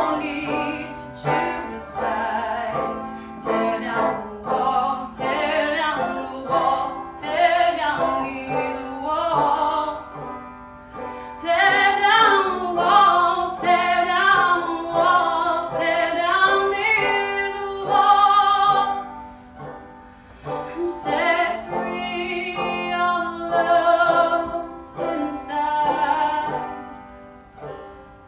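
A woman singing a song to her own banjo accompaniment, the strummed and plucked strings under a held, wavering vocal line, trailing off near the end.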